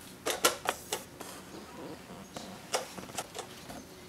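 Sharp plastic clicks and taps as a white plastic clock movement is set into a wooden cuckoo clock case and its mounting screws are tightened: a quick run of about five clicks in the first second, then a few more scattered later.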